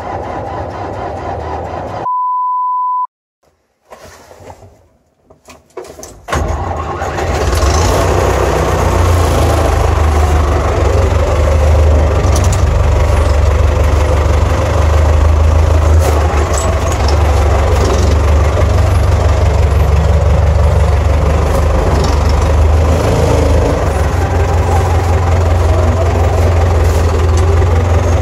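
A single steady beep about two seconds in, then, after a short pause, a Steyr 768 tractor's diesel engine starts about six seconds in and runs steadily, heard loud from inside the cab.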